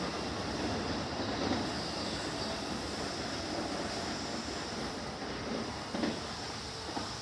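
Electric commuter train running on the track, a steady rumble that slowly fades, with a couple of sharp wheel clacks about six and seven seconds in.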